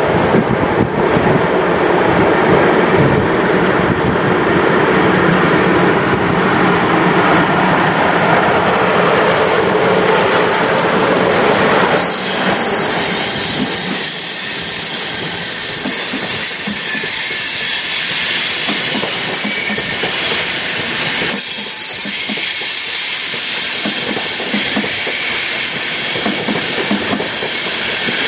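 Locomotive-hauled Intercity train running along the platform. There is a heavy rumble as the head end passes. About twelve seconds in, a high steady squeal from the running gear starts and lasts to the end, over the rhythmic clicking of the coaches' wheels.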